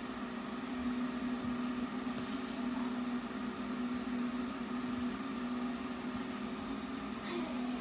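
Steady electric hum of a food dehydrator running. Faint soft rustles of flour and shortening being worked by hand in a plastic bowl come and go over it.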